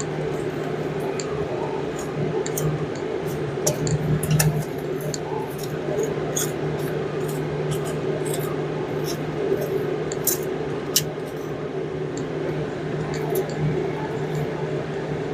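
Scattered light metallic clicks and taps of hand tools and bolts against engine parts, over a steady background hum.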